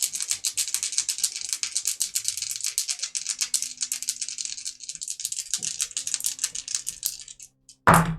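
A handful of game dice shaken in the hand, a fast continuous rattle of clicks, then thrown onto the table with one loud clatter just before the end.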